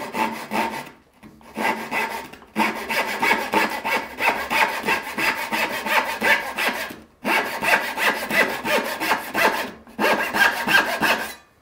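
Veritas 14-teeth-per-inch rip-pattern backsaw crosscutting a 3/4-inch vertical-grain fir board with light, quick back-and-forth strokes. The sawing comes in several runs with short pauses between them.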